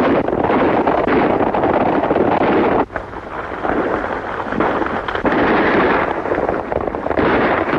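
Horses galloping, a dense clatter of hoofbeats that briefly dips about three seconds in.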